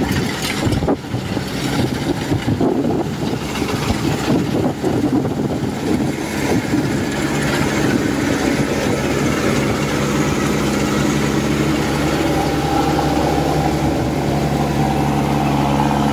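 Kubota DC-105X combine harvesters' diesel engines running steadily under load as they cut standing rice, an even engine drone with a few knocks in the first second.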